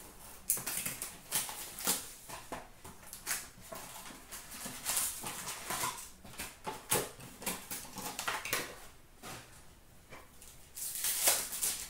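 Upper Deck Artifacts hockey card pack wrappers crinkling and tearing as packs are ripped open and the cards handled, an irregular run of sharp crackles with a dense burst near the end.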